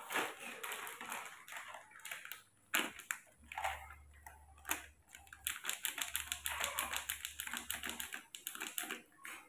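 A plastic sachet of powdered milk crinkling as it is handled and emptied over a plastic cup. It makes a quick run of small crackles in spurts, with short pauses.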